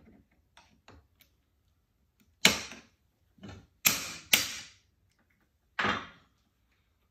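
Hand tools and metal shifter parts being handled on a workbench: a few faint ticks, then about five sharp clacks with a short ring over the next few seconds, the first the loudest.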